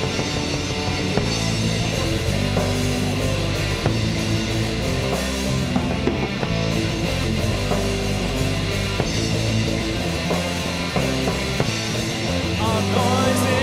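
Heavy metal song: distorted electric guitars riffing over drums, getting louder near the end.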